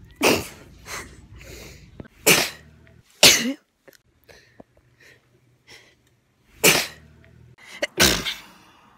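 A woman sneezing repeatedly: five loud, sharp sneezes, unevenly spaced, with a smaller one shortly after the first.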